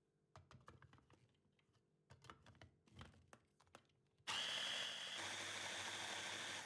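A few light clicks and knocks of kitchen things being handled, then about four seconds in an electric blender switches on and runs steadily with a high whine, beating tofu and coconut milk into a smooth sauce.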